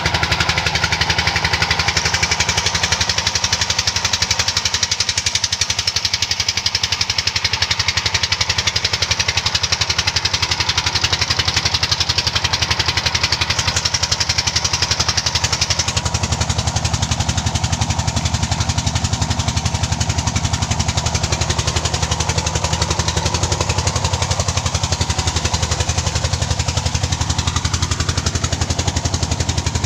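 The '48' diesel engine of a land tin-mining rig running steadily at constant speed, with an even, rapid firing beat and a hiss above it.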